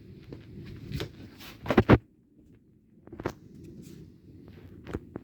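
A few sharp knocks and clicks, the loudest a close pair just under two seconds in, over a steady low outdoor rumble.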